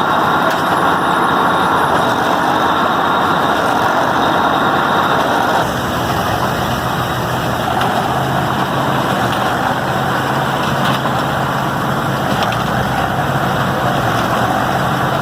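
New Holland model 75 hay baler running in the field with its drive engine, a steady engine drone and machine clatter; the sound shifts slightly and gets a little quieter about five and a half seconds in.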